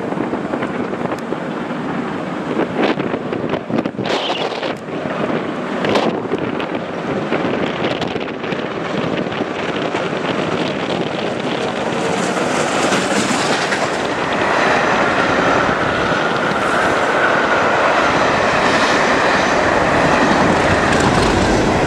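British Railways Britannia class 7MT steam locomotive No. 70013 Oliver Cromwell running through at speed with its train, heard through heavy gusting wind noise on the microphone. The train's sound builds from about halfway and stays loud as it passes close by.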